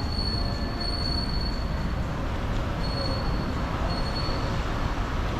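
A train squealing at a high pitch that comes and goes several times, over a steady low rumble of rail traffic.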